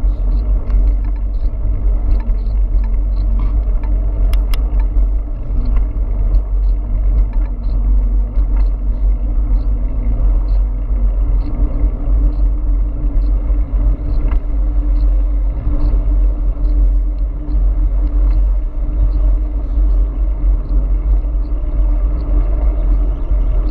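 Wind buffeting the microphone of a camera mounted on an e-bike riding along a highway, a loud steady low rumble with road noise under it, and a faint regular ticking through it.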